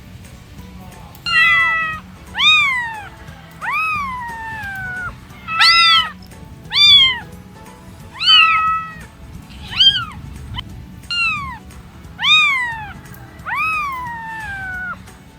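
Domestic cat meowing about ten times in a row, each meow rising and then falling in pitch, starting about a second in.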